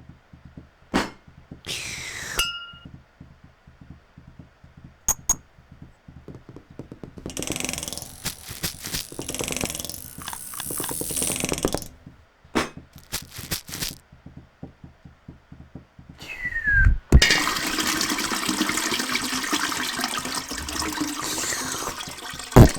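Homemade cartoon sound effects built from metal, wood, forks, water and voice: scattered knocks and clicks, a falling tone about two seconds in, and a few seconds of rushing, water-like noise in the middle. Near the end comes another falling tone, then a long stretch of rushing water-like noise, closed by one very loud hit.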